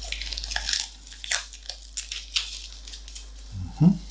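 Masking tape being pulled off the roll and torn into pieces: a crackly rasp at first, then a string of sharp ticks and snaps. A short low sound comes near the end.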